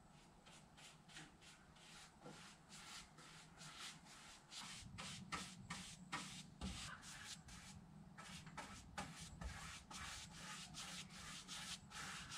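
Paintbrush strokes brushing stain onto wooden boards: faint, repeated swishes at roughly two a second.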